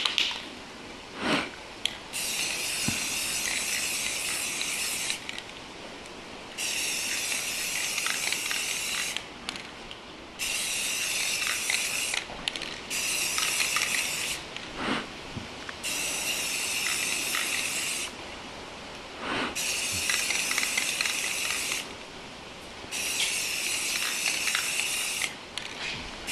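Aerosol spray can of primer hissing in seven short bursts of a few seconds each, with brief gaps and a few faint clicks between them: light passes of primer being sprayed.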